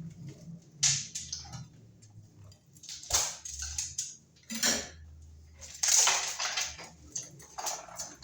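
A run of short clattering, scraping noises, about five of them, with the longest and loudest lasting about a second, from hands and tools working on an opened-up wall and its electrical box.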